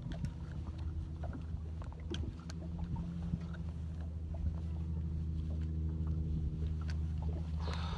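Boat motor running with a steady, low, even hum, with scattered light clicks and knocks; a brief rush of noise near the end.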